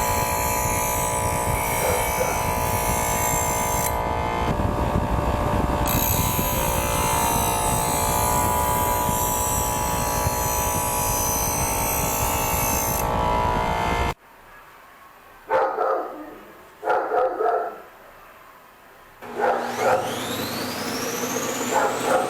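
A power tool runs steadily and cuts off suddenly about fourteen seconds in. A dog barks in two short bouts in the quieter stretch that follows, and barks again near the end as a motor spins up with a rising whine.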